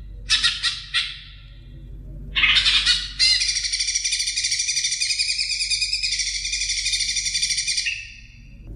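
Green leafbird (cucak ijo) singing: a few short chirping phrases, then from about two and a half seconds in a long, rapid warbling run of notes that stops near the end.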